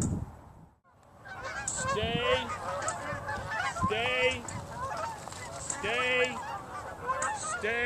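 A flock of geese honking, many calls overlapping, with louder honks about every two seconds; it starts about a second in, after a brief moment of near silence.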